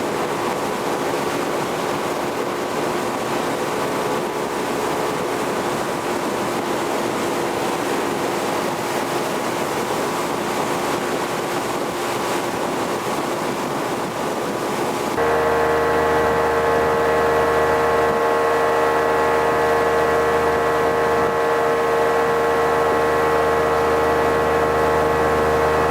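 Motorboat engine running steadily under a rush of wind and water. About fifteen seconds in, the sound cuts abruptly to a louder, even engine hum made of several steady tones.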